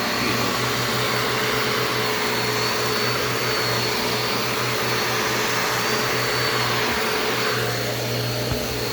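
Shark Navigator DLX upright vacuum cleaner running steadily, a motor hum with a faint high whine over the rush of air.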